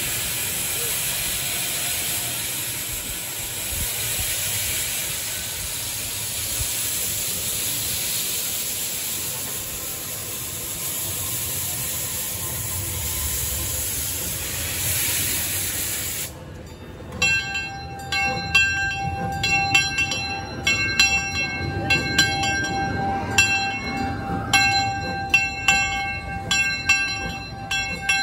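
Small steam locomotive venting steam with a steady hiss. About halfway through this gives way to the locomotive's bell, rung in repeated strokes that keep ringing on.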